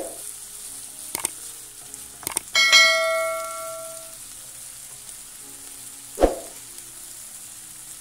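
Diced chicken frying in oil in a pan, a steady sizzle, stirred with a wooden spatula. About two and a half seconds in, a couple of clicks and then a bell chime that rings for about a second and a half, from a subscribe-button animation. A single knock about six seconds in.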